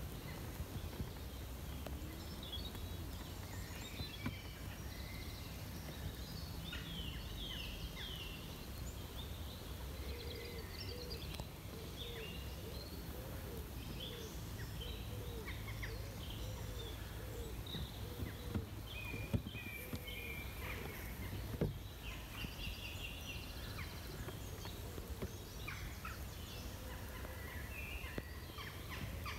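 Birds singing and calling, with short high chirps and trills throughout. In the middle, a bird repeats a low call about once a second for some ten seconds. Underneath runs a steady low hum.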